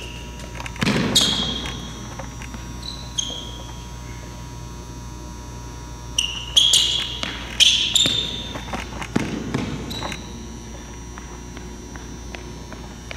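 Sneakers squeaking and footfalls thudding on a gym floor during quick stutter steps and cuts: a string of short, sharp squeaks and a couple of heavier landings, over a steady electrical hum.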